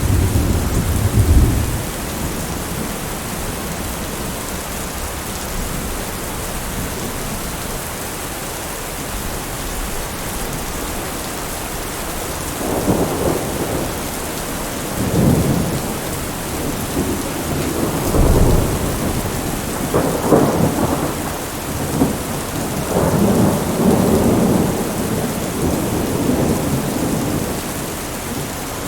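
Thunderstorm: heavy rain falling steadily, with thunder rumbling right at the start and again in a run of rolling peals through the second half.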